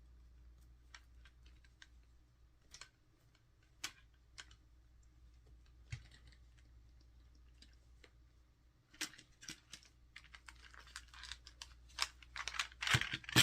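Small diamond painting tools being handled as a felt toolkit bag is opened and emptied: scattered light clicks and taps at first, then from about nine seconds in a busier run of clicking, clattering and rustling that grows loudest near the end.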